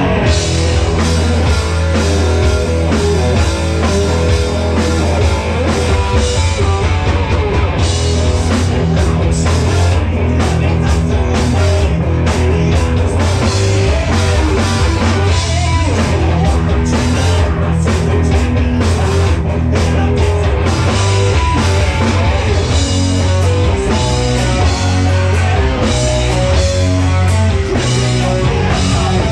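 Live rock band playing loudly, with electric guitar, drum kit and a heavy bass line.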